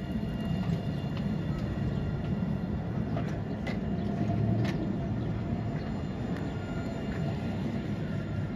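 Alstom Citadis tram rolling past close by on street track: a steady low rumble with a faint whine, and a few sharp clicks about halfway through.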